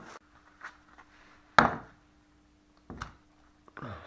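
Four sharp metal clunks as a new wheel hub assembly is handled and set down on a tiled floor, the loudest about a second and a half in, with some rustling of its plastic wrapping.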